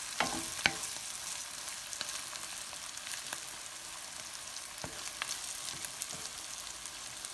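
Dulet (chopped tripe, liver and meat in spiced butter) sizzling in a pan in its last minute of cooking, just after the green chili has gone in. A few sharp clicks from stirring against the pan stand out, the loudest about half a second in.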